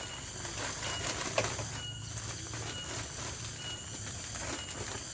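Steady outdoor hiss with a low hum, and a short high chirp repeating about once a second.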